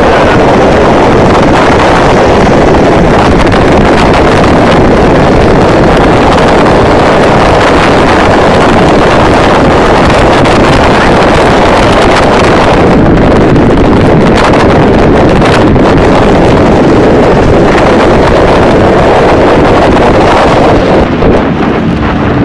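Loud, steady wind blast buffeting the microphone of a small open-cockpit light aircraft in flight, with its engine running underneath. The hiss thins slightly near the end as the aircraft comes down low.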